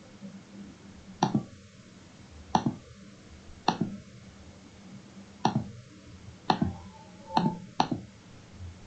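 Computer mouse button clicked seven times: sharp single clicks, unevenly spaced about a second apart.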